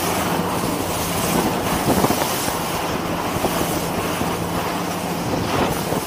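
Merry Fisher 695 running at speed through swell: the steady drone of its outboard engine under the rush of water and spray along the hull.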